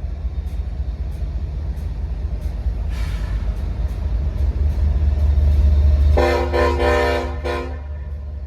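Diesel freight locomotives rumbling as they approach, growing louder, then the lead locomotive's multi-chime air horn sounding a quick series of short blasts about six seconds in.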